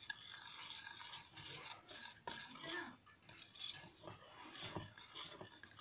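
Wire whisk beating thick batter in a steel bowl: irregular, scratchy strokes of the wires against the metal.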